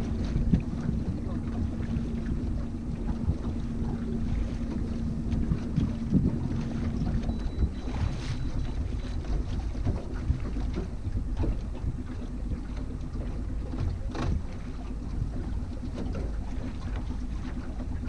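Small outboard motor running steadily at trolling speed, a low rumble and hum, with wind noise on the microphone.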